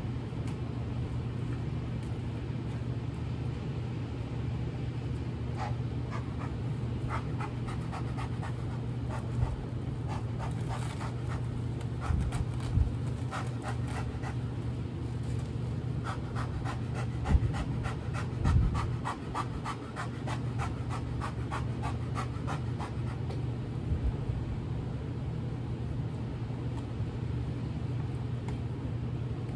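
Beehive boxes and frames being handled: runs of quick clicks and a few dull thumps over a steady low hum.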